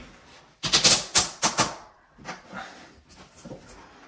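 A quick run of about five sharp, loud clicks and knocks, then a few fainter ones, from a porcelain tile being pressed and tapped into place by hand among plastic tile-leveling clips.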